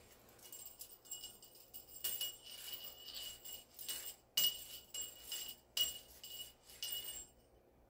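Small jingle bell shaken repeatedly, a series of bright jingles with the sharpest shakes around two, four and a half, six and seven seconds in, stopping near the end.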